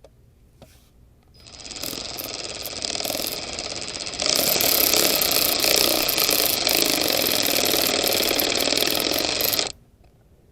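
Cordless power driver running as it drives a screw back into its threads. It starts about a second in, gets louder and faster about halfway through, and cuts off suddenly shortly before the end.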